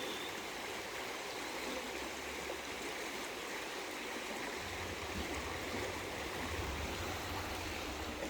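Stream water rushing and babbling steadily over rocks, with a low rumble joining about halfway through.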